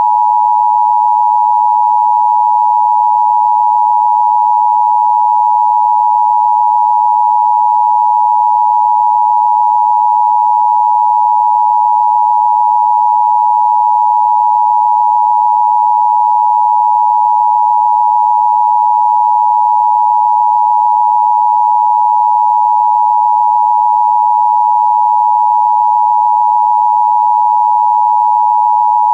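Emergency Alert System attention signal: two steady tones near 853 and 960 Hz sounding together, held loud and unbroken.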